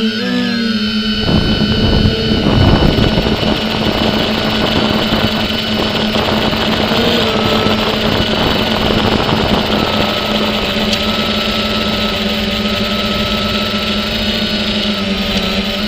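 Drone's electric motors and propellers humming in steady tones, with a brief wobble in pitch just after the start. A rushing noise joins from about a second in and runs on under the hum.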